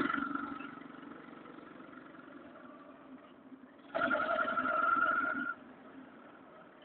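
Motor vehicle engine running with a steady pitch, loud at first and fading to a low hum, then swelling loud again for about a second and a half about four seconds in.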